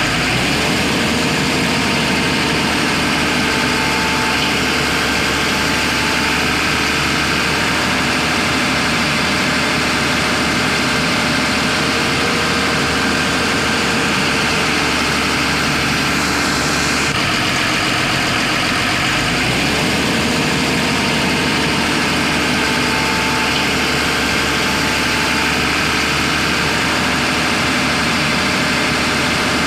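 Diesel engine of a JCB backhoe loader running steadily at idle, an unbroken hum; the same stretch of engine sound repeats about 19 seconds in.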